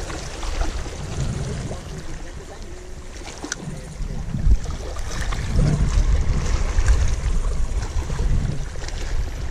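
Wind buffeting the microphone in an uneven low rumble, over small waves lapping against the rocks of a jetty, with a few faint clicks and one louder knock about four and a half seconds in.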